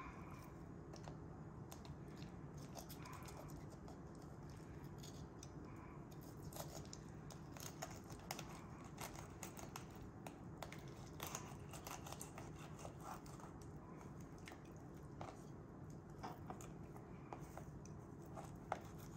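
Faint, irregular slicing and scraping of a knife filleting a perch on a plastic cutting board, with small clicks as the blade meets the board.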